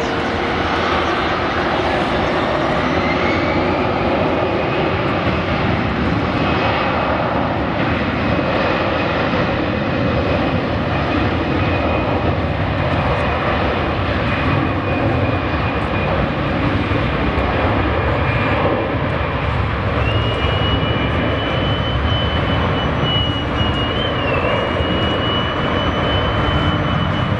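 Airbus A320 twin jet engines at takeoff power during the takeoff roll: a steady, loud rush of engine noise. A thin high whine rises over the first few seconds, and a second thin whine joins about twenty seconds in and wavers.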